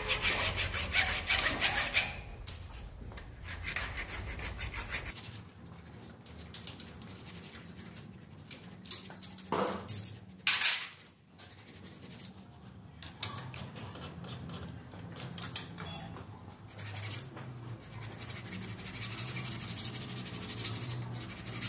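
Hacksaw blade scraping the worn oil-return scroll threads on a Massey Ferguson tractor's crankshaft rear end, in quick repeated rasping strokes of metal on metal, as the thread is recut deeper so the rear main seal stops leaking. The strokes are heaviest in the first two seconds, with a few louder scrapes near the middle.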